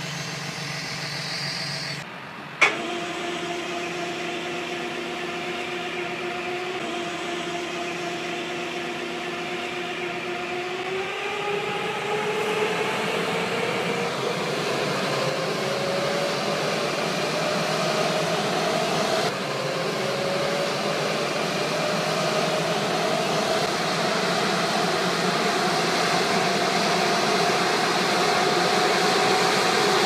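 Tractor-drawn vineyard sprayer running: a steady mechanical hum and whine whose pitch climbs slowly and evenly from about a third of the way in to the end. A sharp click comes near the start.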